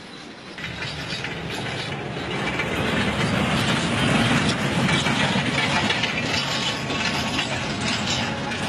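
Narrow-gauge diesel train running on the track, a rumble with rattling and clanking of wheels and cars. It starts about half a second in and grows louder over the next few seconds as it comes close.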